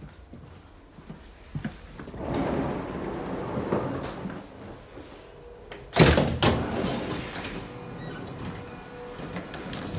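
Interior sliding door of an SBB Bpm 61 passenger coach opening with a rush of noise from about two seconds in, followed by a loud sharp clunk about six seconds in.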